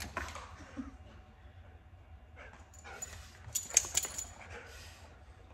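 Border collies jostling close to the microphone, with scattered short huffs and scuffles and a cluster of sharp noises about three and a half seconds in.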